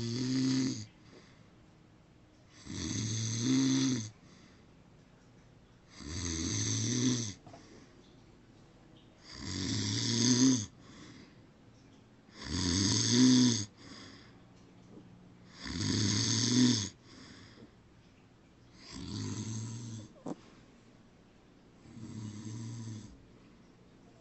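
A man snoring loudly in his sleep, one snore about every three seconds, each swelling louder before it cuts off; the last two are fainter. A brief click about twenty seconds in.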